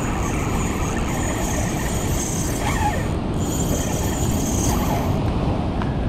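Spinning fishing reel being wound in by hand, over a steady rush of surf and wind on the rod-mounted microphone.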